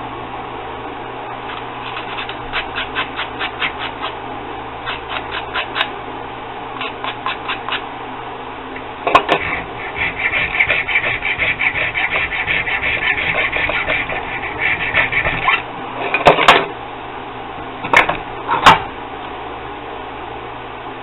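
Needle file being stroked back and forth across a small part clamped in a bench vise: short runs of quick strokes, about five a second, then a faster, unbroken run of filing about halfway through. A few sharp clicks and knocks come near the end.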